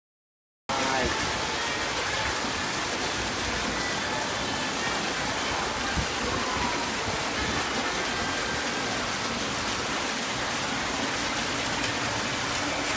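Steady rush of running water in an indoor fishing tank, with faint chatter beneath. It cuts in abruptly just under a second in, after a moment of silence.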